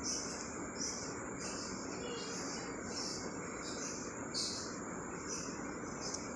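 High chirps of insects repeating about every two-thirds of a second over a steady hiss, like a night-time ambience.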